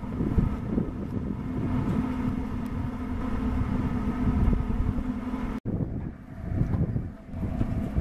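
Window air conditioner running, heard at the deck hatch where its air passes through galvanized ducting: a steady machine hum with a held low tone over an uneven low rumble. A little past halfway the sound drops out for an instant and comes back rougher.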